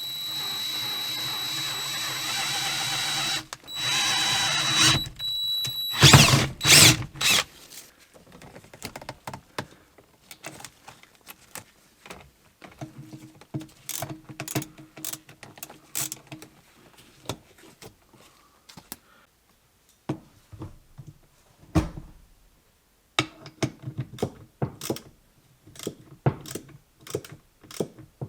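Power drill running in three runs, a long one of about three and a half seconds, then a shorter one and a brief one, drilling a bolt hole through the car body for the shifter mount. A few loud knocks follow, then scattered light clicks and taps of tool work.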